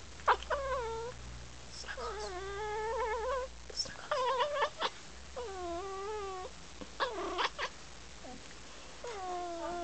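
Pet cat making chattering meows and trills: about six separate calls, some with a warbling pitch, the longest a wavering call of over a second about two seconds in.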